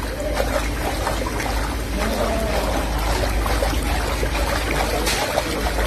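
Water splashing and trickling in a large container of salted water, over a steady low hum.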